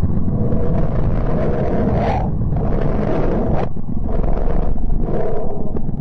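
Space-sound track presented as the 'sound' of the planet Mercury: a loud, deep, rumbling roar of noise that starts abruptly, with a hissier upper layer that cuts in and out several times.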